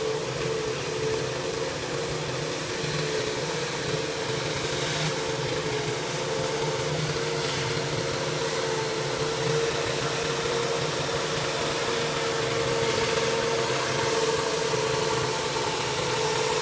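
Pressure washer's engine running steadily under load, with the hiss of the high-pressure water spray.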